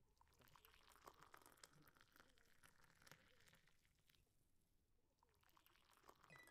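Near silence, with only faint scattered clicks and crackle.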